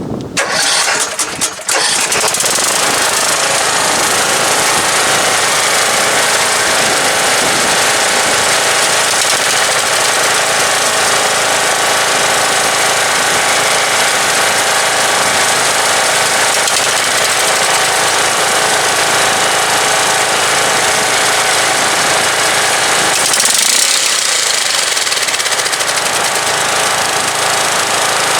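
Lawn tractor's small gasoline engine sputtering in its first couple of seconds, then running steadily on its freshly rebuilt carburetor. The sound shifts briefly near the end.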